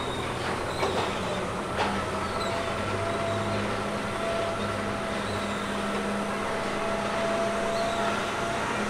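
Theme park ride running on rails: a steady mechanical hum and whine, with a few sharp clanks in the first two seconds.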